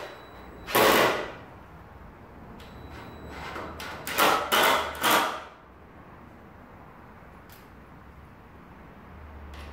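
Cordless drill driving screws into a wooden window frame in short bursts: one about a second in, then three quick bursts around the fourth and fifth seconds.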